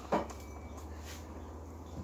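A single short knock from an object being handled close by, then quiet room tone with a steady low hum.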